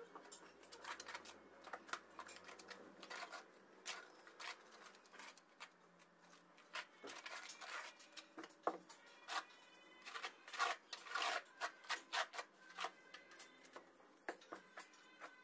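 Quiet, irregular scrapes and clicks from tiling work on a bathroom floor, with the loudest clusters about halfway through.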